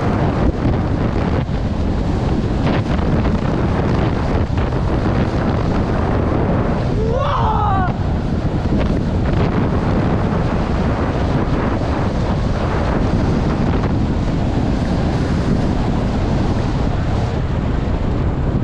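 Heavy wind buffeting the microphone of a skier's camera during a fast descent on a groomed piste, over the hiss and scrape of skis on packed snow. A short shout rises and falls about seven seconds in.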